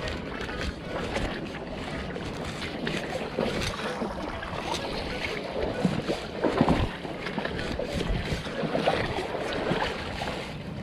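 Shallow tide-pool water sloshing and splashing as a net is swept through it, with small irregular knocks and scrapes, a few louder splashes about two-thirds of the way through, and wind buffeting the microphone.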